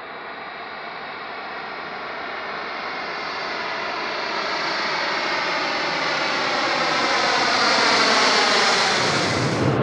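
A large aircraft approaching, its engine noise growing steadily louder over several seconds. Faint whining tones slowly fall in pitch as it nears.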